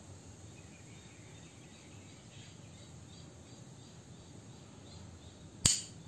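A single sharp metallic click about five and a half seconds in, as a gold-plated Zippo Contempo lighter is handled, over faint insect chirping in the background.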